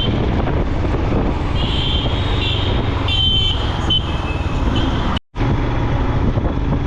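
Busy city road traffic, with a steady rumble of passing vehicles and several short horn toots a couple of seconds in. The sound cuts out for a moment about five seconds in.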